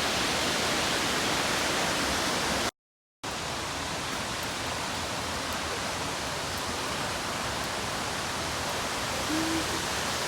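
Waterfall rushing: a steady, dense roar of falling water, cut off by a brief gap of silence about three seconds in, then continuing slightly quieter.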